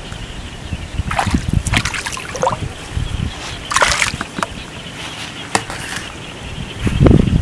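Hands working in shallow river water, with small sloshes and trickles as a hook line is set, over a low wind rumble on the microphone. About seven seconds in, loud splashing starts.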